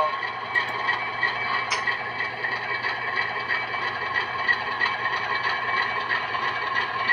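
Model locomotive sound decoder playing an ALCO 244 diesel prime mover through the model's small speakers. It runs steadily with a regular ticking about three times a second, and there is one short click about two seconds in.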